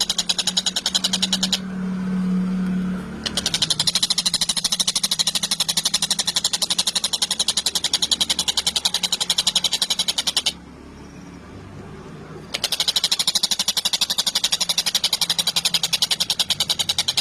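Tengkek buto kingfisher giving a rapid, rattling chatter of many short notes a second, in three long runs broken by two pauses of about two seconds. A low hum is heard during the first pause.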